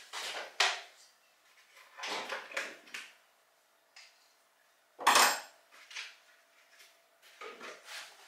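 Metal hand tools clinking and rattling against each other as they are rummaged through, in four short bursts; the clatter about five seconds in is the sharpest and loudest.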